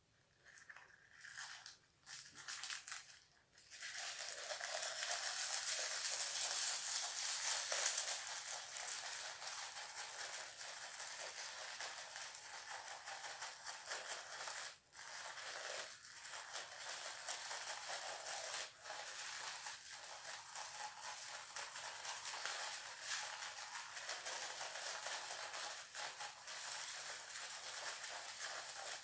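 Crinkly paper streamer rustling as it is pulled hand over hand out of the mouth: a few short rustles at first, then a continuous crackling rustle from about four seconds in.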